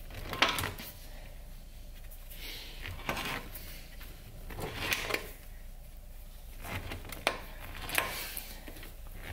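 Steel oil filter can being turned by hand in an oil filter cutter clamped in a vise, giving scattered scrapes and clicks of metal on metal as the can is cut open.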